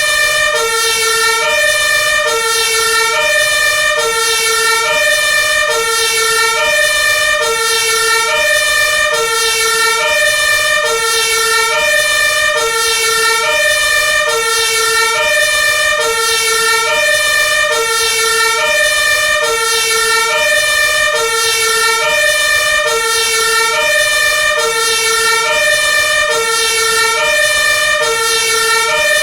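Two-tone hi-lo electronic siren of an Iveco Magirus Eurocargo 160E30 aerial ladder fire truck. It alternates evenly between a lower and a higher note about once a second, over a constant high tone.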